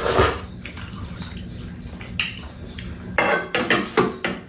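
People eating noodles with metal chopsticks: slurps and mouth noises with chopsticks and bowls clinking, in a few short bursts, most of them between about three and four seconds in.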